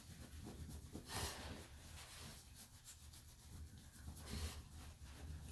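A towel rubbing over a small dog's damp, shaved coat to dry it: a faint scratchy rustling, louder for a moment about a second in.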